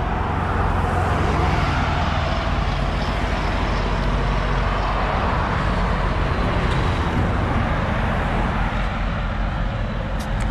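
Steady road traffic noise of vehicles passing on a highway.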